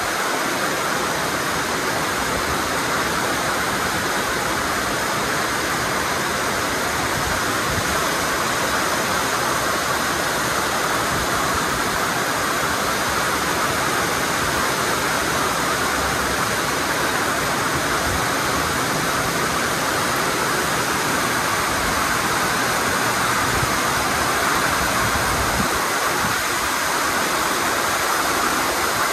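Heavy rain mixed with hail falling on metal roofs: a dense, steady hiss that never lets up.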